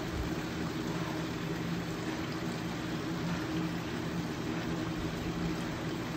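Steady machine hum with a constant low drone and an even rush of noise over it, like a large fan or blower running.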